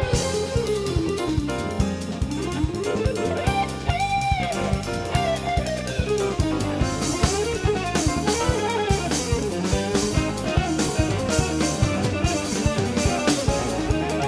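Jazz-fusion recording: an electric guitar plays a winding lead line over drum kit and bass, holding one long note about four seconds in.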